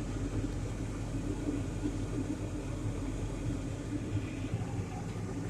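John Deere 8770 tractor's engine running steadily, heard from inside the cab as an even low drone.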